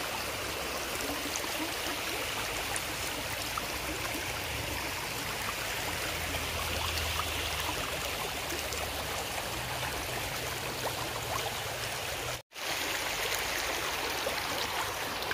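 Small river flowing, a steady rush of water over rocks and debris. The sound cuts out for a split second about twelve seconds in, then returns.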